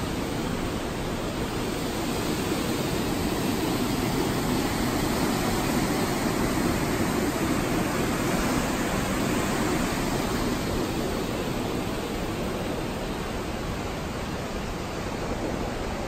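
Glacial river rushing through a narrow rock gorge: a steady rush of water, a little louder in the middle.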